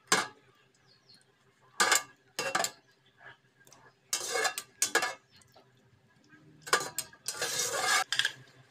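Metal kitchen tongs clinking and rattling against a wire-mesh strainer and plate, in a string of short separate clatters; near the end comes a longer, hissier rattle.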